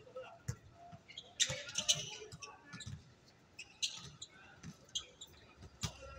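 Basketball game in play: a ball bouncing with dull thumps, sneakers giving short high squeaks, and players calling out. The loudest cluster of squeaks and shouts comes about one and a half seconds in.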